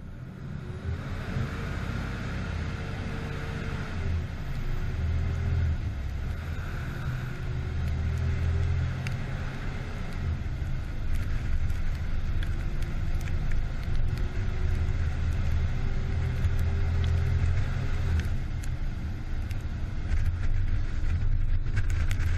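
A fire truck's diesel engine runs under way, with a deep, steady rumble that grows louder over the first couple of seconds. Its note rises and falls slightly several times as the truck drives on.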